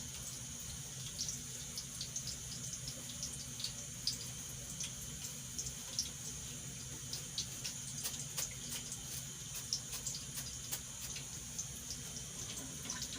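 Steady hiss of a lit gas burner, with scattered light clicks of a spoon stirring a pot.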